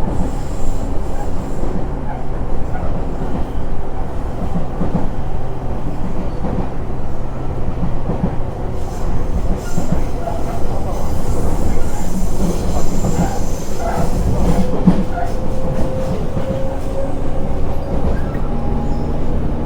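Train running: a steady, loud low rumble with faint steady whining tones, one of which rises slightly in pitch in the last third.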